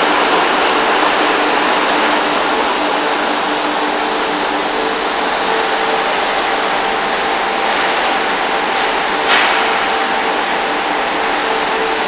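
Steady industrial background noise of a factory floor, an even loud hiss with faint hum tones running under it, and one sharp click about nine seconds in.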